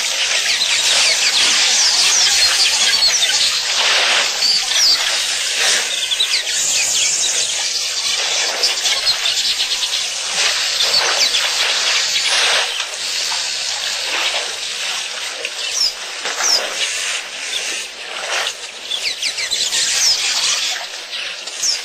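Outdoor bush ambience: a dense, steady high hiss with many quick, falling bird chirps over it, swelling and easing every second or two.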